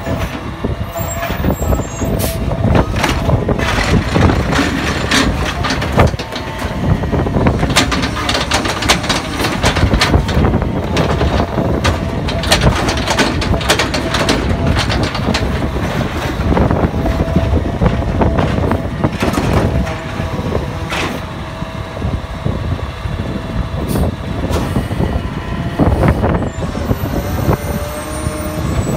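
Automated side-loader garbage truck collecting a trash cart: the diesel engine runs under load with a steady hydraulic whine as the arm grabs, lifts and dumps the cart, with repeated clanks and thuds of the cart and falling trash.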